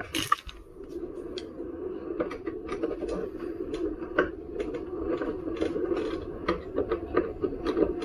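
Flathead screwdriver working the bolts on an electric unicycle's casing: scattered small metal clicks and scrapes over a steady hum.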